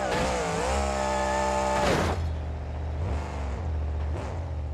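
Monster truck engine revving. It is held high for the first two seconds, then drops back, with two short blips of the throttle near the end.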